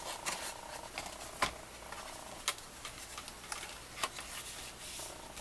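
Stiff cardstock panels being handled and laid down on a craft mat: light paper rustling with a few sharp taps and clicks, the loudest about a second and a half in.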